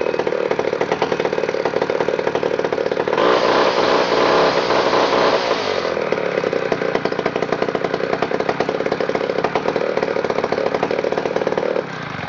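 A 1957 Titan 50 chainsaw's 105cc West Bend 2732 racing two-stroke engine running just after being pull-started. It revs higher for about three seconds, runs steadily, then drops away near the end.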